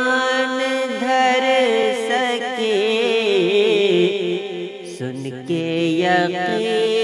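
Urdu ghazal singing: a solo voice holding and ornamenting long sung notes with a wavering, melismatic line over musical accompaniment, with lower steady accompanying notes coming in about five seconds in.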